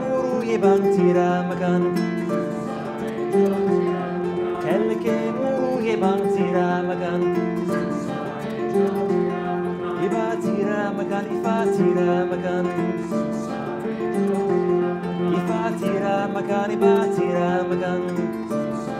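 A kora, the 21-string West African harp, being played in a steady, flowing pattern of plucked notes, tuned to the white keys of the piano. A man's voice sings over it at times.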